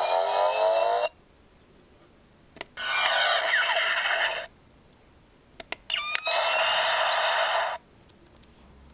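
Hasbro Iron Man Arc Reactor toy playing its electronic power-up sound effects through its small built-in speaker, in three bursts with rising sweeps. The first burst ends about a second in, and two more of about a second and a half each follow. Short clicks come just before the second and third bursts, with near silence in between.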